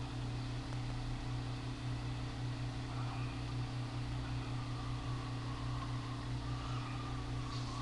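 Steady low electrical hum with a faint even hiss, unchanging throughout: room tone picked up by a webcam microphone.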